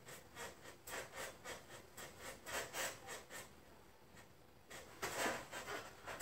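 Hands rubbing over the skin of the front of the thigh in soft-tissue massage of the quadriceps: a run of short, faint rubbing strokes about three a second, a pause, then more rubbing near the end.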